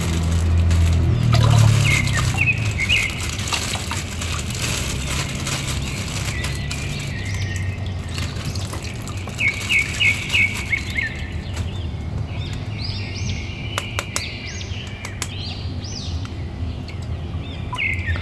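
Thin plastic bag crinkling as an action figure is worked out of it, with the crackle dying away about eleven seconds in. Birds chirp in the background, with a quick run of chirps near the ten-second mark and more calls after it.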